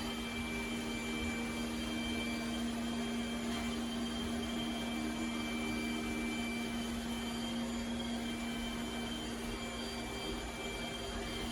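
iRobot Roomba Combo j7+ robot vacuum running steadily: an even motor hum with a faint high whine over a steady rush of suction noise.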